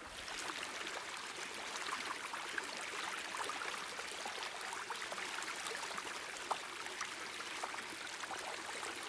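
A steady hiss full of many small crackles, like running water, fading in at the start and then holding level.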